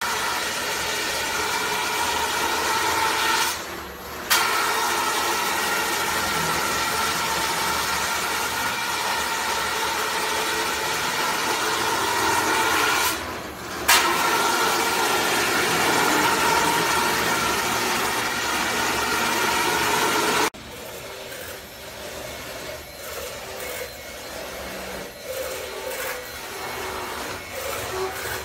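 DIY CNC router spindle milling a styrofoam block: a steady high whine over a rough cutting hiss. The sound drops away briefly twice, near 4 seconds and again near 13 seconds. About 20 seconds in it cuts off sharply to a much quieter, uneven machine noise.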